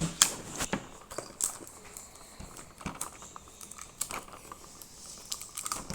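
Plastic packaging crinkling and crackling in the hands as tape is picked off it, in irregular sharp clicks, the loudest just after the start.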